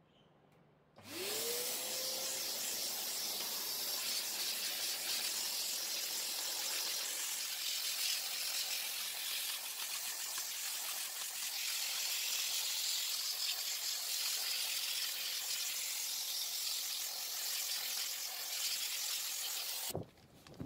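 Small electric cleaning appliance switched on about a second in: its motor whines up in pitch to speed, then a steady rush of air runs evenly for about nineteen seconds before cutting off abruptly.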